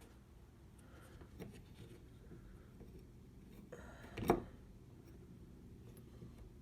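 Quiet handling of the door lock installation kit against a door: faint rubbing and light ticks, with one sharp knock about four seconds in.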